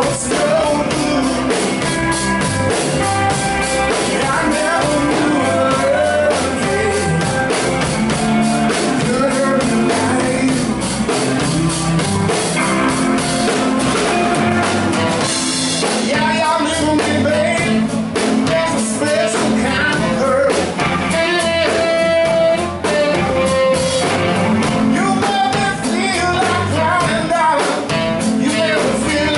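Live blues-rock band playing: electric guitar, electric bass through an Ampeg SVT amp, and drum kit, loud and steady throughout.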